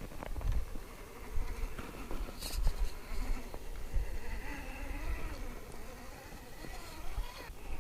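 Axial SCX10 II rock crawler's stock 35-turn brushed electric motor and drivetrain whining, the pitch wavering up and down with the throttle through the second half and cutting off near the end.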